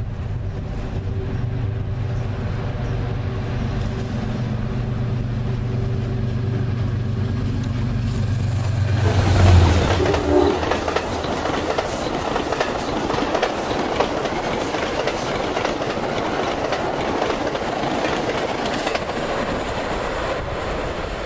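An Amtrak train led by a GE P32AC-DM diesel locomotive passes at speed. The locomotive's steady engine drone builds to a peak about nine seconds in, then the passenger cars roll by in a steady rush of wheels on rail.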